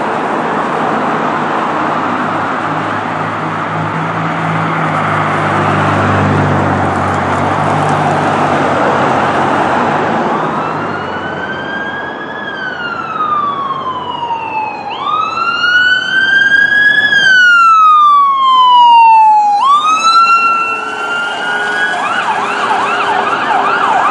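Road traffic passing for the first ten seconds or so, then an ambulance siren comes in on a slow wail that rises and falls twice. Near the end it switches to a fast yelp as the ambulance runs code three with a patient.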